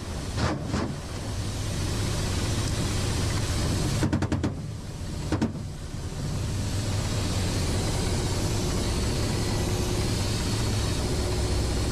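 Helicopter engine and rotor noise, a steady loud drone with a low hum. About four seconds in there is a quick burst of several sharp bangs, and one more bang about a second later.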